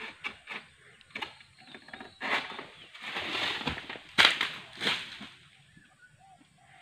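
Oil palm harvesting with an egrek pole sickle: light clicks and scrapes of the blade working at the palm, then rustling fronds and several heavy thuds in the middle as a cut ripe fruit bunch and frond drop to the ground.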